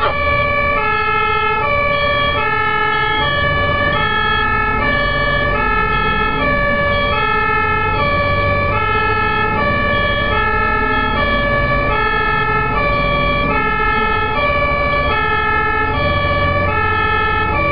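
German fire truck's two-tone siren (Martinshorn) sounding continuously, its high and low notes alternating in a steady, even rhythm. The truck's engine and road noise rumble low underneath.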